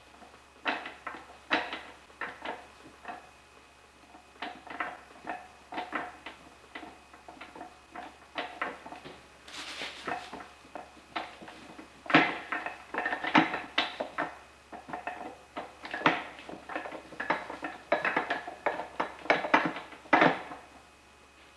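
Dodge NV4500 transmission input shaft being wiggled and turned by hand into the gear case: irregular metallic clinks and clacks of steel gear teeth and the bearing, busier in the second half as the gear works to engage the fourth-speed clutch gear.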